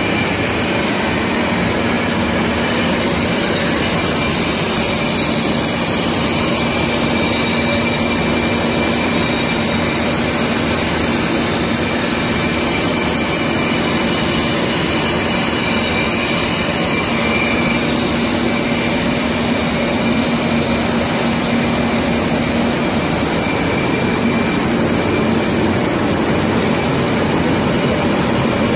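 Waldrich Siegen heavy semi-NC lathe turning a large metal cylinder, the tool cutting and throwing off curled chips. Steady, loud machine noise with a constant low hum and a few thin high whines held throughout.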